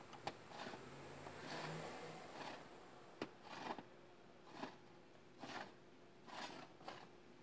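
Light metallic scrapes and clicks from hands fitting parts into a Honda Accord automatic-transmission clutch drum during clutch-pack assembly: a series of short scrapes about once a second, with two sharper clicks, one just after the start and one about three seconds in.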